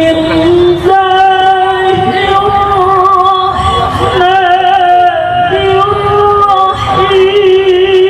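A woman reciting the Quran in melodic tilawah style, holding long notes with a wavering, ornamented pitch in phrases of one to two seconds.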